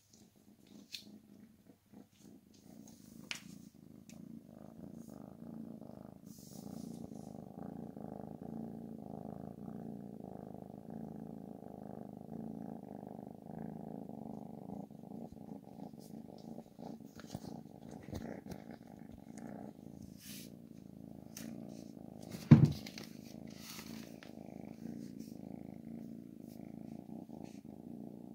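Tabby kitten purring steadily, starting a few seconds in, while being stroked. A single sharp thump, the loudest sound, comes about three-quarters of the way through, and there are a few faint taps at the start.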